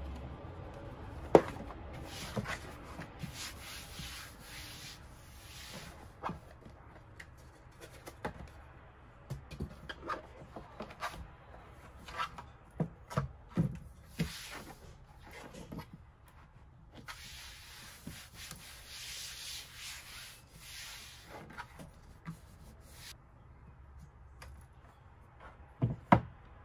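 A desk mat being unrolled and smoothed flat across a desk by hand: spells of rubbing and sliding, broken by scattered knocks and taps, the sharpest about a second in and just before the end.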